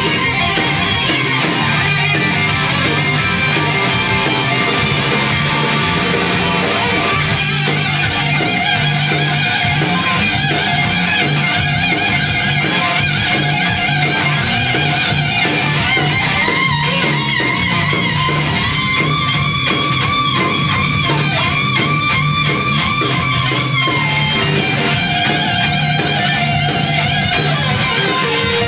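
A live rock band playing loud and steady: electric guitars over bass and drums, with long held lead notes past the middle.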